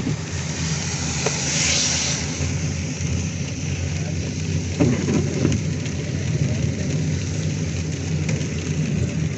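Heavy rain beating on a car's roof and windshield over the steady hum of the engine and tyres on a wet road, heard from inside the cabin. About two seconds in, the rain hiss briefly swells louder.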